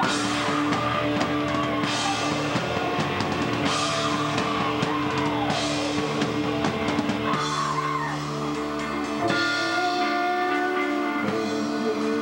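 Live metal band playing loud: distorted electric guitar, drum kit with repeated cymbal crashes, and the singer's vocal over them.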